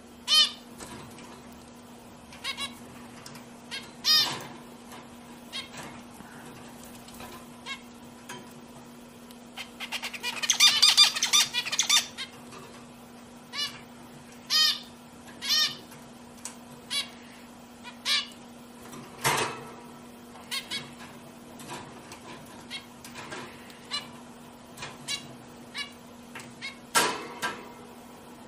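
Zebra finches giving short nasal calls. The calls come one at a time at uneven intervals, with a dense burst of rapid calls from about ten to twelve seconds in. A steady low hum runs underneath.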